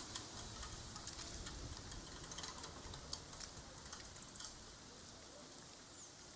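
Faint, irregular light ticks and clicks over a low steady hiss; they come thickly at first and thin out after about four seconds.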